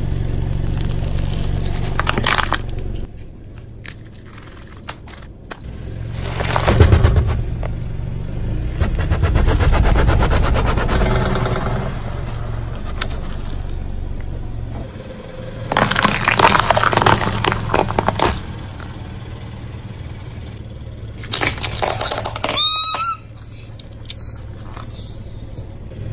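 A car's tyres rolling over and crushing objects, with bouts of crunching and cracking between stretches of low engine running. Near the end a brief high squeal wavers up and down as something is crushed.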